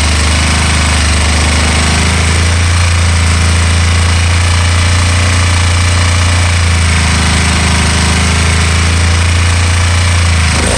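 Can-Am Spyder RT's Rotax 990 V-twin engine running steadily at idle while it misfires.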